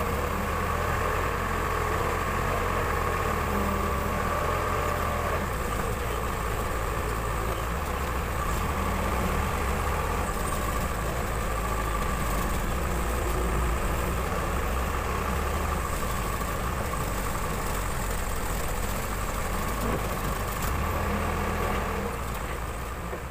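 Case 580 Super L backhoe loader's diesel engine running steadily, fading out near the end.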